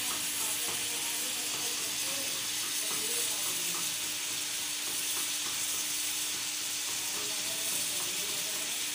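Chicken pieces sizzling steadily as they fry in hot oil in a steel kadhai, with a few light clicks scattered through.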